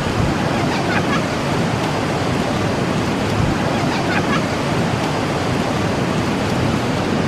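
Steady rushing noise of ocean surf and wind on a beach, with no breaks.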